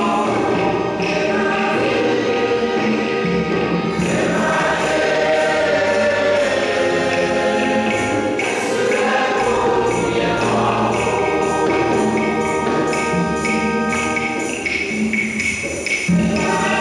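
A choir singing to music, with a tambourine jingling a steady beat.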